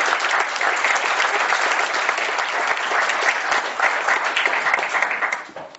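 Audience applauding, a dense steady clatter of many hands clapping that dies away shortly before the end.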